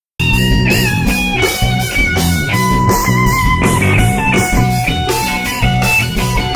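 Background rock music with electric guitar and a steady beat, starting abruptly from silence right at the start.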